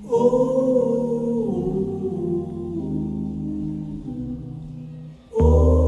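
Music: sustained chords that swell in at the start and slowly fade, then a second, louder swell with a deep bass about five seconds in.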